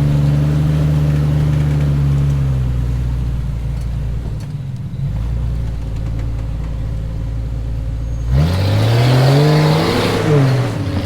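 Jeep engine running off-road, easing back after a couple of seconds to a low steady drone. About eight seconds in, it revs up and back down, rising and falling in pitch.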